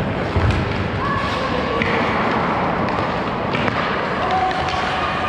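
Ice hockey play in an echoing indoor rink: skate blades scraping the ice, sticks and pucks knocking, a low thud about half a second in, and voices calling out across the ice.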